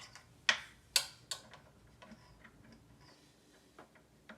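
Small metal drum hardware clicking and clinking as it is handled: three sharp clicks in the first second and a half, then a few fainter taps.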